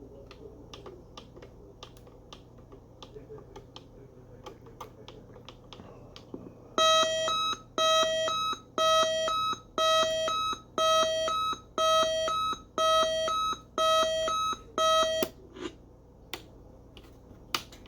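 Realistic Chronomatic 260 clock radio's alarm beeping electronically, a pulsed pattern repeating about once a second, nine times, starting about seven seconds in. Scattered small clicks come before and after the beeping.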